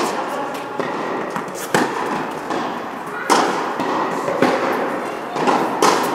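A tennis rally: a ball struck by rackets, about five sharp pops roughly a second and a half apart, each ringing briefly in a large indoor tennis hall.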